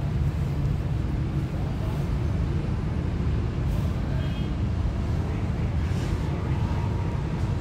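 Steady low rumble of room background noise, with faint voices.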